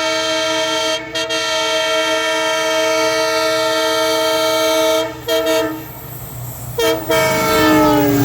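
Horn of an EMD WDP4D diesel locomotive sounding long, loud blasts of a multi-note chord, with brief breaks about a second and five seconds in. A last blast near the end slides down in pitch as the locomotive passes, and the low rumble of the train comes up under it.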